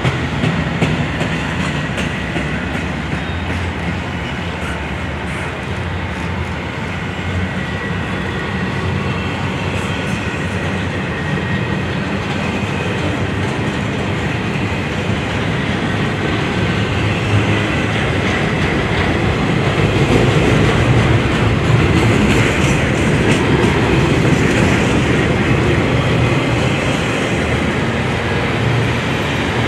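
Double-stack intermodal well cars of a freight train rolling past, steel wheels running on the rails in a steady noise that grows louder in the second half.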